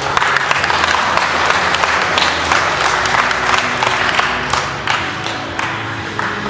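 Applause: many hands clapping in a dense, irregular patter, with music playing faintly underneath.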